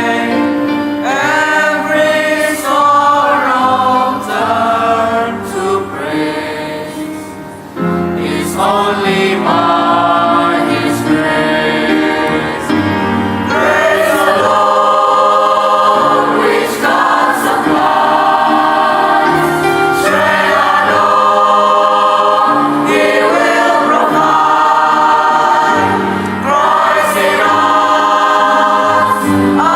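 Junior high school choir singing a church praise song in several voices. The singing thins and softens about five seconds in, then the full choir comes back in strongly just before eight seconds.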